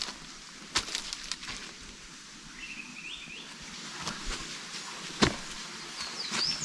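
Footsteps crunching on a dirt trail at an uneven pace, with a small bird chirping briefly twice, about three seconds in and again near the end.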